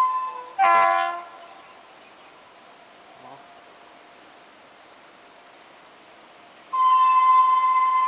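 Air horn of a WAP-7 electric locomotive: a short blast about half a second in, then a long, steady blast starting near the end. A faint steady hiss fills the gap between them.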